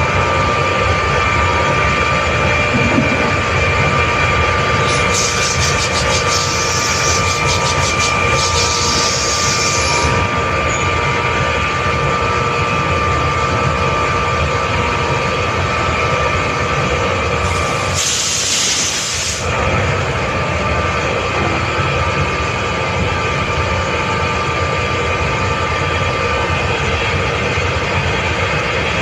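Hitachi screw air compressor running steadily with a constant tone. A hiss of escaping air with rapid ticking comes about five seconds in and lasts about five seconds, and a louder, short hiss of air comes about eighteen seconds in.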